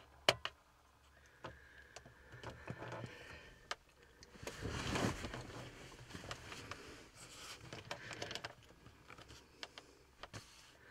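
Quiet handling noises inside a car's cabin: a sharp click near the start, then faint scrapes, rustles and scattered clicks, with a louder rustle lasting about a second around the middle.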